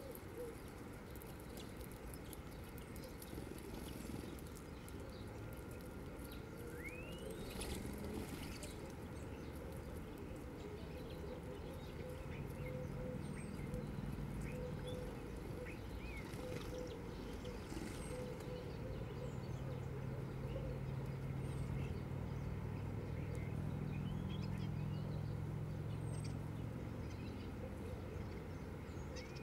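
Faint, scattered chirps of small birds over a steady outdoor background. A low steady hum comes in about halfway through.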